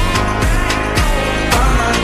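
Loud electronic dance music with a heavy bass beat: a deep kick about twice a second whose low tone slides down in pitch each time, under sharp percussion hits.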